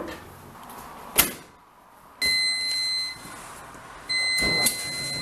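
A front-loading laundry machine's door bangs shut about a second in. Then its control panel gives two long electronic beeps, each about a second, as its buttons are pressed to start it.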